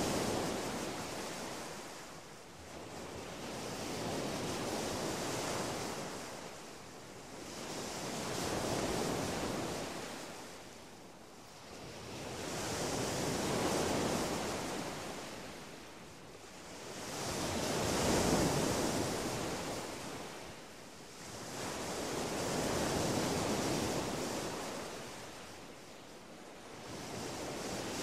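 Sea waves washing in and drawing back, a swell of surf about every four to five seconds.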